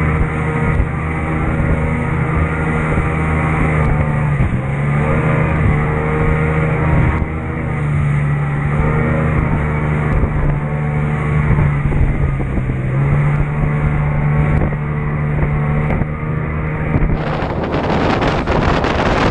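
A center-console motorboat's engine running under way, its pitch rising and falling as the boat rides the chop, with water rushing past the hull. About seventeen seconds in, the engine fades under wind buffeting the microphone.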